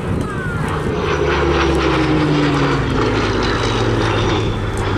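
Supermarine Spitfire Mk Vb's Rolls-Royce Merlin V12 engine running at display power as the fighter flies past, its pitch falling steadily as it goes by.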